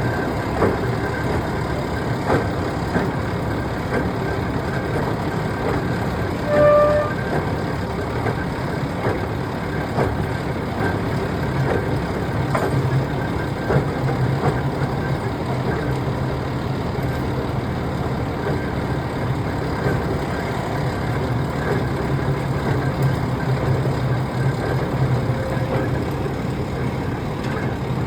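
Diesel engine of a truck-mounted Failing 1250 drill rig running steadily, with scattered clicks and knocks from the machinery. A short beep sounds once about seven seconds in, and a low hum grows stronger from about twelve seconds in.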